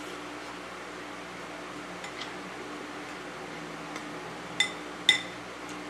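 Cutlery clinking against a plate a few times as food is scooped up, the two loudest clinks about half a second apart near the end, over a steady low hum.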